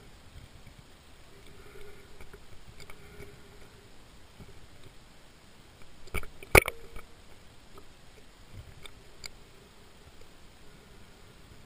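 Underwater ambience picked up by a camera in its waterproof housing as a spearfisher glides over weed beds: a faint steady hiss with scattered small clicks, and two sharp clicks close together about six seconds in.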